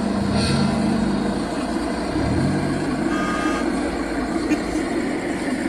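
Simulated diesel truck engine sound from the sound units of miniature RC trucks, with short held low tones and a few brief higher tones about three seconds in, over a steady noisy background.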